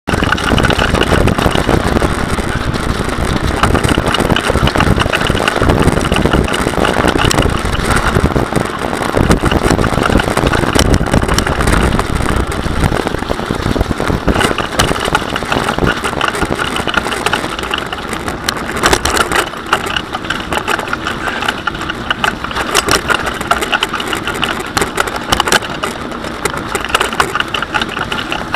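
Bicycle rolling fast over a rough, uneven woodland trail: a continuous rumble of tyres and rattle from the bike, with scattered sharp clicks and knocks, easing a little after about eighteen seconds.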